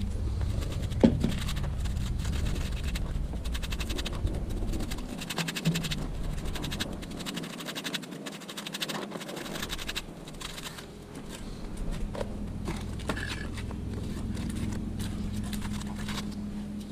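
Small trowel scraping and stirring wet cement mortar in a plastic tub, in repeated scratchy strokes.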